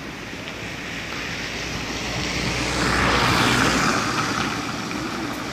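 A car driving past close by: its engine and tyre noise swell to a peak about three and a half seconds in, then fade.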